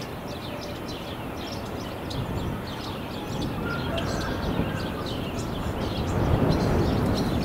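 Small birds chirping again and again over a low rumble of wind on the microphone, which grows louder toward the end.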